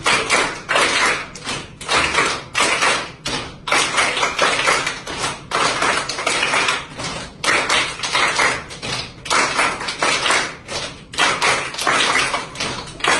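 A class of children and their teacher clapping hands together in a steady repeating rhythm, bursts of claps coming about one to two times a second.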